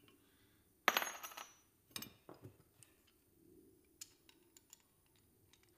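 Small scrap metal pieces dropped and clinking on metal: a sharp ringing clank about a second in, another at about two seconds, then a few light clicks.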